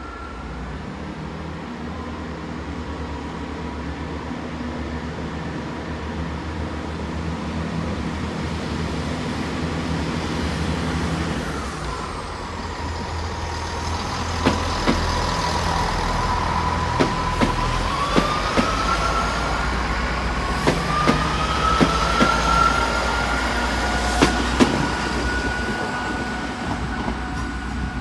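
Class 166 Turbo diesel multiple unit departing: its diesel engines run steadily, then the note changes about halfway through and a whine rises in pitch as the train pulls away, with a series of sharp clicks from the wheels over rail joints or points.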